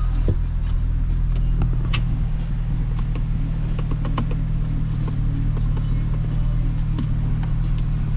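2021 Hyundai Kona's 2.0-litre four-cylinder engine idling steadily, with a few light clicks.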